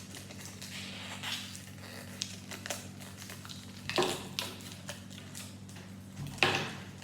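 Small cardboard toy box and its plastic inner covering being handled and opened: light rustling and clicks, with two louder crinkling handling sounds about four seconds and six and a half seconds in.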